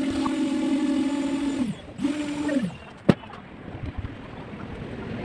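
A motor-driven machine humming steadily, then winding down in pitch as it is switched off, started again for about half a second and winding down again; a single sharp click follows about three seconds in.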